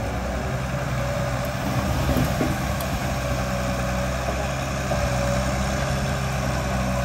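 Diesel engine of a tracked excavator running steadily while its arm and duckbill bucket swing back over the barge, a low even hum with a steady higher tone above it.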